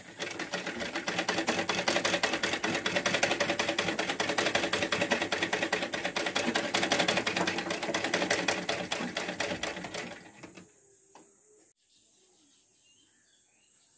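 Hand-cranked domestic sewing machine stitching: a rapid, even clatter of the needle mechanism that slows and stops about ten seconds in.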